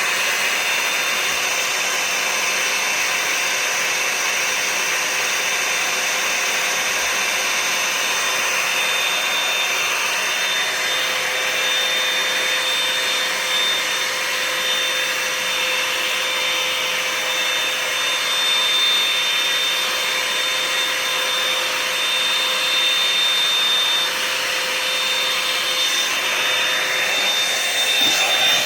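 Revlon One-Step Hair Dryer and Volumizer hot-air brush running: a steady rush of blown air with a thin, high whine from its motor.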